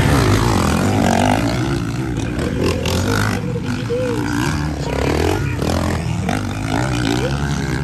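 Motocross bike engines revving hard as the bikes pass close by, the pitch rising and falling several times as the riders work the throttle and shift.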